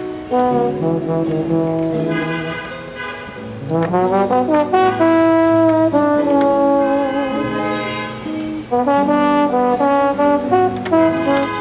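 Brass instrumental music: trombones and trumpets playing a melody of held notes, with a rising slide about four seconds in.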